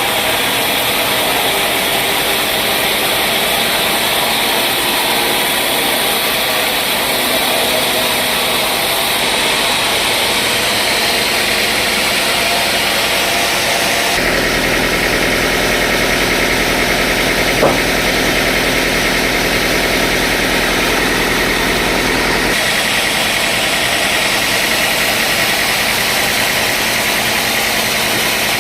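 Sawmill machinery running steadily with a loud, even engine-like drone. Its tone shifts abruptly about halfway through and again later, and there is one short knock about two-thirds of the way in.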